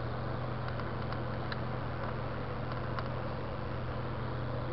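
Steady rolling noise of mountain bikes riding on wet asphalt, over a steady low hum, with a few faint clicks.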